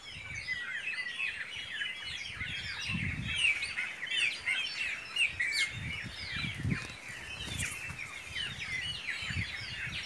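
Many small birds chirping and singing together in a dense chorus of short, quick chirps, with a few soft low rumbles underneath.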